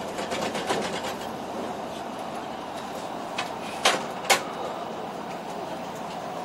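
Running noise of a limited express train heard from inside the passenger car: a steady rumble of wheels on rails. A rapid patter of light clicks comes near the start, and a few sharp clacks follow, the two loudest close together about four seconds in.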